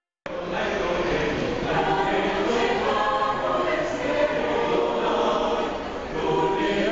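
A mixed choir of men's and women's voices singing together in sustained, overlapping chords, starting suddenly a moment in.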